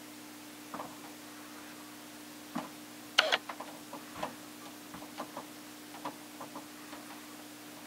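A cat rolling and pawing on a rug, its claws making scattered light clicks and scratches at irregular moments, the loudest about three seconds in. A steady low hum runs underneath.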